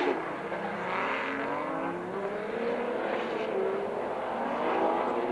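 Several rallycross cars' engines running hard during a race, their notes overlapping and rising and falling as the drivers accelerate and lift.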